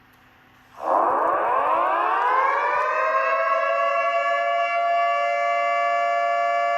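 Ice hockey arena goal horn sounding: it comes in about a second in with its pitch rising over a couple of seconds, then holds a loud steady chord of several tones.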